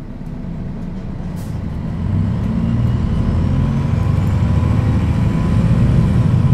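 Diesel engine of a MAN NL 263 low-floor city bus, an inline six-cylinder, running and growing louder, with a step up about two seconds in. A short hiss comes about a second and a half in, and a faint high whine rises through the middle.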